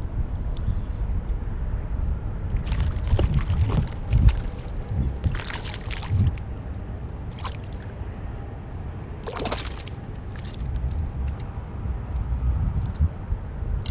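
Water splashing in short bursts beside a kayak, three or four times, over a steady low rumble of wind on the microphone.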